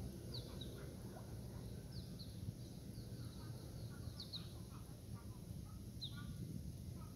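Birds chirping: short, high, downward-sliding chirps, several in quick pairs, over a steady low background rumble.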